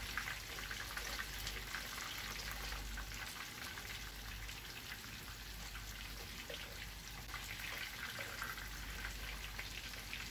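Hot oil sizzling and crackling steadily around breaded trout fillets shallow-frying in a pan as they are turned over to brown the second side.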